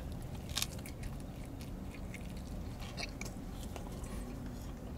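A man chewing a bite of a fish taco in a toasted flour tortilla, with scattered small crunches and mouth clicks, inside a car's cabin.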